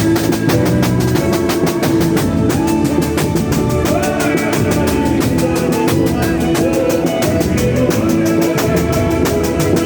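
Boi-bumbá percussion band playing a fast, steady drumbeat of many drums, with a melody over it.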